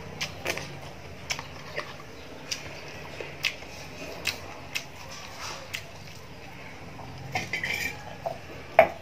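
Eating sounds: chewing with short, sharp mouth smacks and clicks about once or twice a second. A brief crackly cluster comes near the end, then one louder click.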